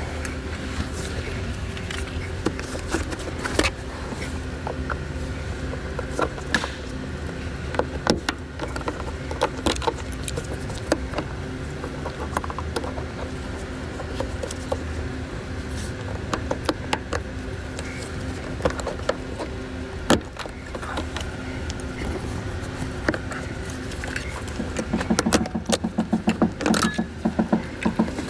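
Plastic interior trim and an overhead light assembly in a Toyota Camry being unclipped and handled: scattered clicks and taps over a steady hum, with a quick run of rattling clicks near the end.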